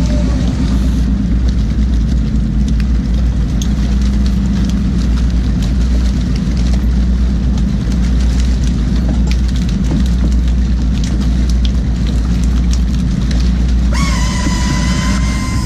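Boat engine of an aluminium fishing skiff running steadily under way, with water rushing past the hull. A steady high whine joins about a second and a half before the end, rising briefly as it starts.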